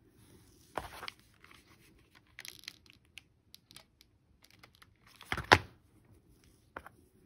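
Handling noises on a cardboard work surface: a plastic hot glue gun knocks against the board about a second in and is set down with a louder clunk about five and a half seconds in, with small clicks and rustles between as a metal brooch pin is handled and glued to a shell flower.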